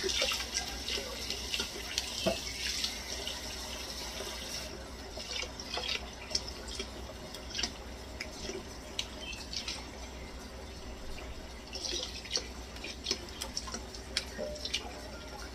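Kitchen tap running into a steel bowl of water spinach in a stainless steel sink, with splashing and small knocks and rustles as the stems are handled and rinsed. The stream gets a little softer about five seconds in.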